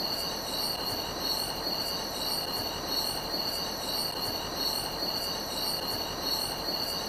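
Chorus of crickets trilling steadily at a high pitch, with a faint repeating pulse in the highest notes over a soft hiss.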